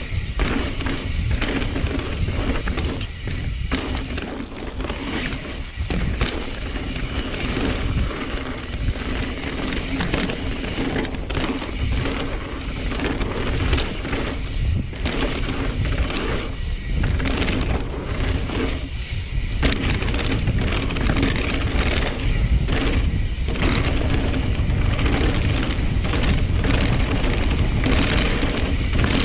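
Background music playing steadily.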